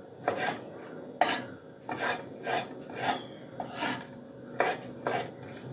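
Kitchen knife slicing a small tomato lengthwise and tapping through onto a wooden chopping board: a string of short, irregular knife strokes, about one or two a second.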